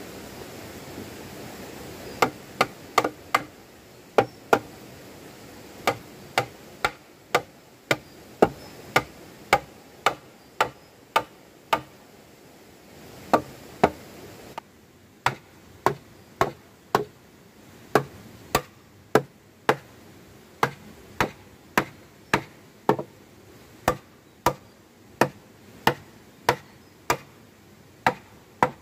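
A hand tool striking over and over: a steady series of sharp knocks, about two a second, with a short pause near the middle.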